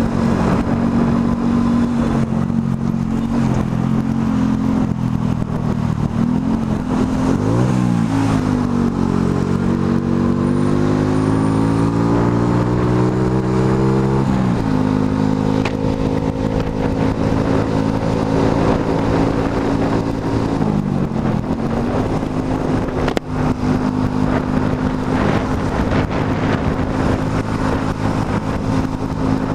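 Motorcycle engine running while riding: it eases off and picks up again about seven seconds in, climbs steadily in pitch as it accelerates, then drops sharply at a gear change about fourteen seconds in, and dips and recovers again near twenty-one seconds. Wind and road rush run under it.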